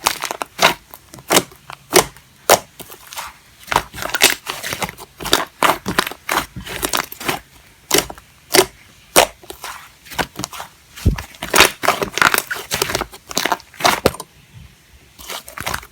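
Fluffy clay slime being squished and pressed by hand, giving irregular crackling pops and clicks, several a second, with a brief pause near the end.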